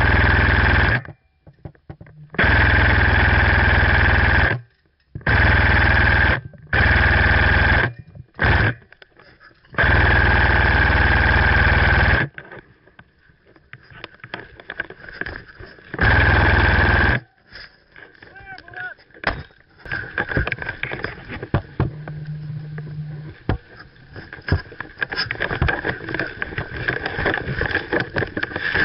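Airsoft electric rifle firing full-auto bursts, about seven of them over the first seventeen seconds, each starting and stopping sharply and lasting from a fraction of a second to a couple of seconds. Then quieter scuffs and clicks.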